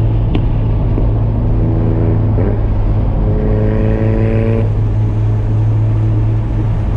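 Turbocharged RB25DET straight-six of a built R33 Skyline running at a steady cruise, a constant low drone. A higher engine note, rising slightly, joins in for a couple of seconds midway.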